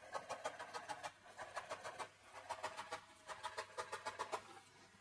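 Chef's knife chopping fresh parsley and dill on a bamboo cutting board: quick runs of blade taps on the wood, about eight a second, with brief pauses between runs. The chopping stops shortly before the end.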